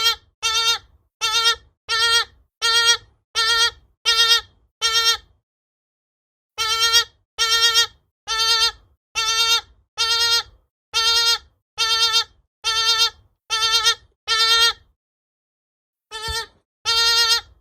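Galago (bushbaby) giving a series of short, wavering cries, each about half a second long, repeated about once every 0.7 seconds. The calls come in three bouts, with pauses of a second or more a little after five seconds and near fifteen seconds in.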